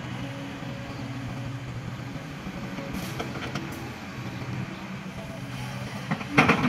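Kobelco hydraulic excavator's diesel engine running steadily as it digs and swings. About three seconds in there is a short clatter of soil and stones dropping into a steel dump-truck body. Near the end comes a loud crunch and knock as the bucket bites into the stony ground of the pit.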